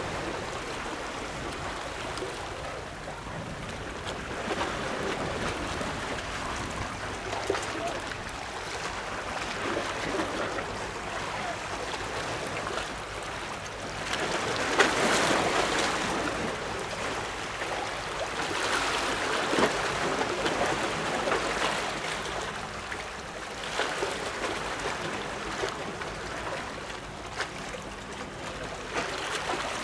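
Sea water lapping and splashing, a steady wash that swells louder for a couple of seconds around the middle and again a few seconds later.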